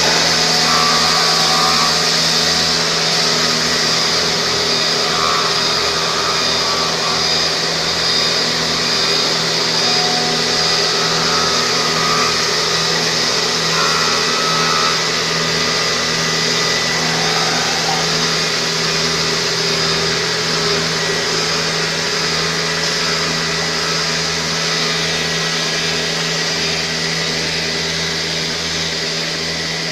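HH-CNC-85-4TA CNC linear profiling machine running, its motors giving a steady hum and its abrasive belts sanding the edge of a curved wooden part with a constant hiss.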